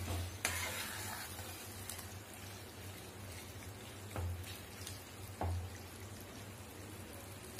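Thick chicken-and-onion masala sizzling quietly in a kadai as a spatula stirs it, with a few scrapes or knocks of the spatula against the pan about half a second, four and five and a half seconds in. This is the final fry of the masala, stirred until the chicken is done.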